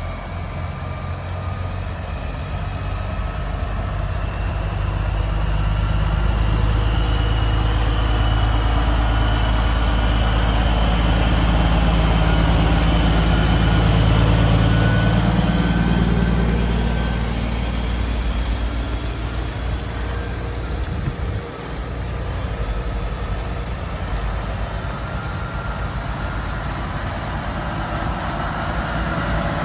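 Heavy diesel engine of a Kenworth W900L semi truck pulling out. Its deep rumble grows louder as it passes close, peaks about halfway, then eases off. In the second half, a Ford LTL 9000 tractor's diesel engine runs more steadily as it comes up.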